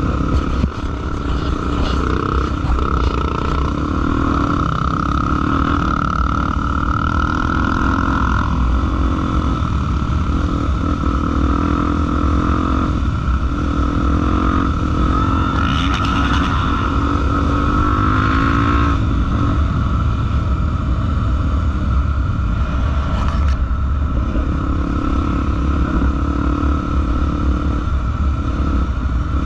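Honda XR 250 Tornado trail motorcycle's single-cylinder engine running on a dirt trail, its revs rising and falling with the throttle over a steady heavy rumble.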